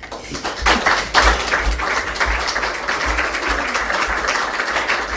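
A small audience applauding: the clapping starts abruptly and goes on as a steady patter of many hands.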